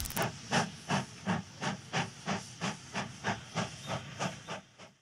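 Steam locomotive chuffing: even exhaust beats of steam, about three a second, fading out near the end.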